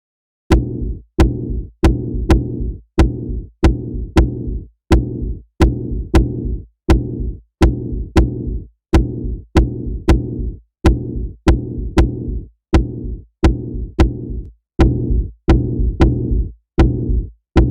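Electronic bass drum "boom" in A, played over and over about one and a half times a second. Each hit is a sharp click followed by a pitched low boom that dies away before the next.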